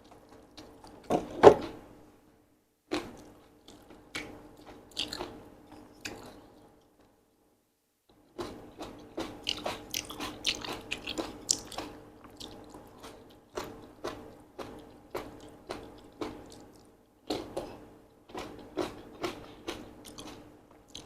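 Close-miked eating of Korean sweet-potato glass noodle salad: wet chewing and biting with rapid smacking clicks, and one loud bite about a second and a half in. The sound drops out twice, briefly near two seconds and for about a second before eight seconds, then the chewing comes back faster and denser.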